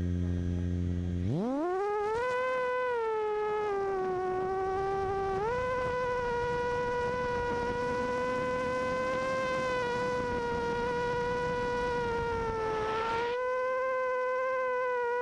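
Vortex 250 Pro FPV racing quadcopter's brushless motors and propellers heard from on board: a low hum at idle, then a sharp rise in pitch about a second in as it throttles up to take off. After that a loud, steady buzzing whine that shifts up and down in pitch with the throttle.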